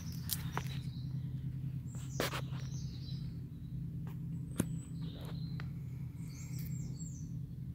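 Small birds chirping in short calls over a steady low hum of background noise, with a few sharp clicks, one of them about two seconds in and another near the middle.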